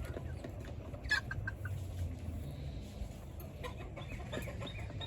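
Chickens clucking over a low rumble. A little past halfway a bird starts a quick run of short falling chirps, about three a second.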